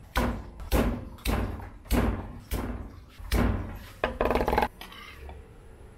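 Cleaver hitting garlic cloves on a thick wooden chopping block: six heavy thuds about every half second, then a quick burst of rapid chopping about four seconds in.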